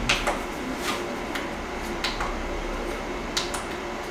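A series of sharp plastic clicks at irregular intervals as input-selection buttons are pressed, over the steady whir of a running LCD projector's cooling fan.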